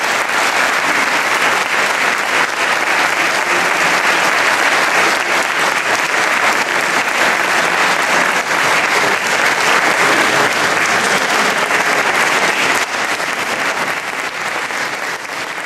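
Audience applauding steadily, beginning to fade out near the end.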